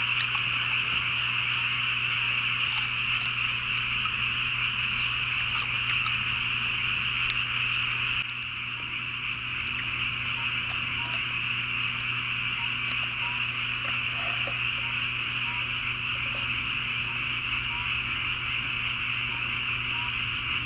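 A dense, steady chorus of many frogs calling together.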